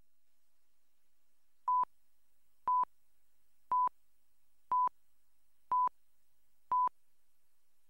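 Countdown leader beeps: six short, identical beeps of one steady pitch, one each second, keeping time with the numbers counting down.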